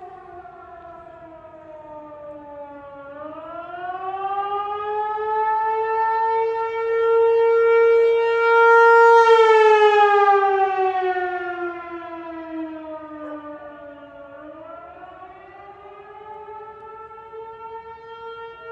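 Tsunami warning siren wailing during its routine monthly test, its pitch sliding slowly down and up. It dips about three seconds in, climbs and holds high, falls again and then rises near the end, growing louder through the middle.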